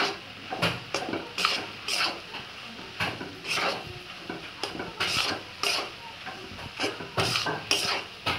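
A wooden spatula scrapes and stirs a crumbly gram-flour mixture around a kadhai in repeated strokes about twice a second, as the mixture is roasted dry in ghee.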